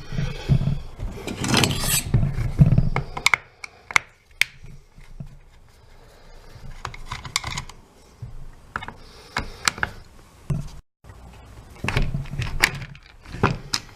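Handling noise from taking apart a cordless reciprocating saw: rubbing and rustling at first, then scattered sharp clicks and knocks of the tool and hand tools being moved and set down.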